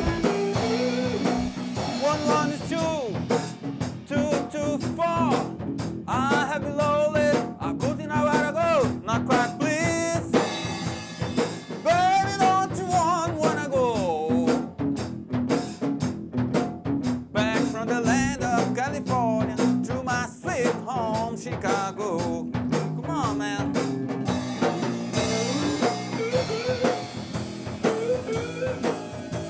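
Blues-rock band playing, with a lead line that bends and wavers in pitch over a steady drum beat.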